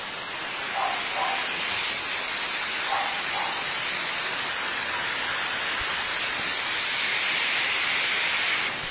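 Steady rushing hiss of volcanic ash falling on roofs, trees and the road during an ashfall. It grows brighter about two seconds in and holds.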